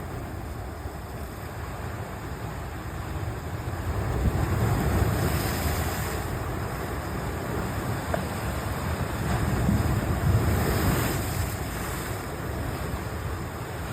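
Sea surf washing on the shore, with wind rumbling on the microphone; the sound swells twice, about four and ten seconds in.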